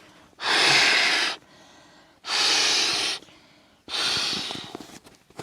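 A person breathing out or blowing hard three times, each breath lasting about a second with a short pause between them.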